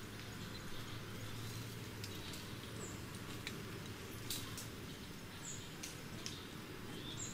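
Outdoor ambience: short high-pitched chirping calls, several times, over a steady low hum, with a few light clicks.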